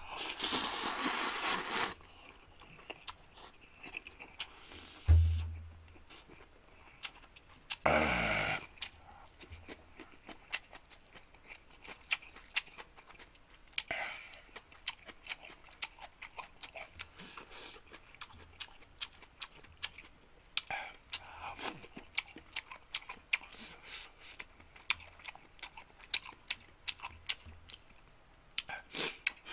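A man slurping instant ramen noodles: a long slurp at the start and a shorter one about eight seconds in, with chewing and many small wet mouth clicks between them. A single low thump about five seconds in.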